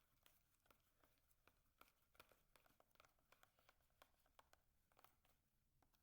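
Very faint, irregular clicks of slime being stirred and mixed, several a second.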